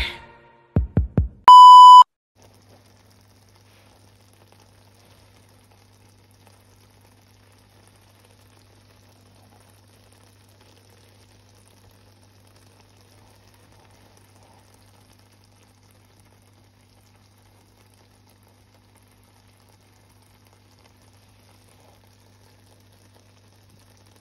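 Three quick low thumps, then a loud half-second electronic beep at one steady pitch, an edited-in sound effect at the end of a video intro. After about two seconds only a faint low hum remains.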